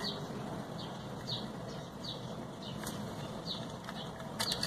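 A small bird chirping over and over in the background: short chirps that slide downward, about two or three a second. Near the end come a few light clicks from handling small drone parts.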